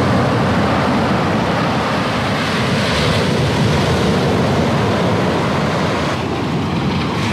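Strong waves breaking on the shore, a steady loud wash of surf, with wind rumbling on the microphone.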